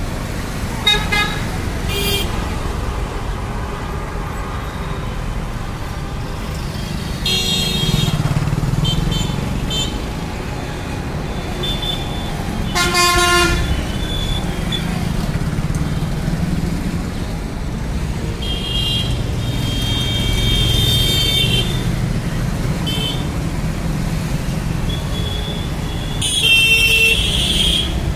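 Busy Indian street traffic: a steady rumble of engines and tyres with vehicle horns honking every few seconds, some short beeps and some longer blasts, the loudest near the end.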